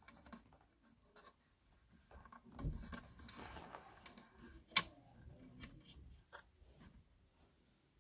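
Soft rubbing and scraping from hands handling the speaker's wires and parts, with one sharp click about five seconds in.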